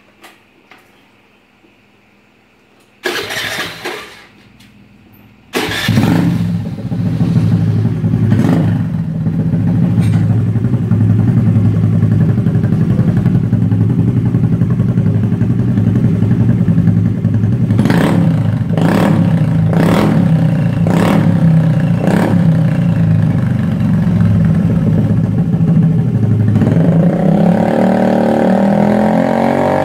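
Honda Dio scooter engine running through an Austin AR aftermarket silencer: a brief first start attempt about three seconds in, then the engine catches a couple of seconds later and idles steadily. A run of about five quick throttle blips comes in the middle, and the pitch rises and wavers with revving near the end.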